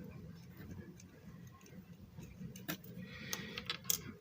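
Light clicks and taps of small model-kit parts being handled and fitted, with a few sharper clicks near the end.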